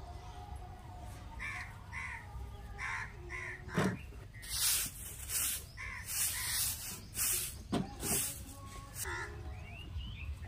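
Broom sweeping a concrete road: a run of swishing strokes from about four seconds in, with a few sharp knocks. A bird calls several times in a row before the sweeping starts.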